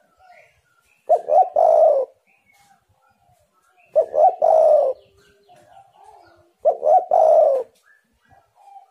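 Spotted dove cooing: three loud phrases about every three seconds, each a quick double note running into a longer falling coo. Fainter coos and small chirps from other birds sound between the phrases.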